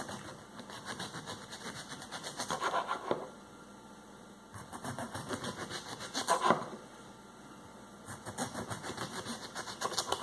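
A small kitchen knife sawing back and forth into an overripe yellowed cucumber on a wooden cutting board. It comes in three runs of rapid rasping clicks, each two to three seconds long and each growing louder near its end.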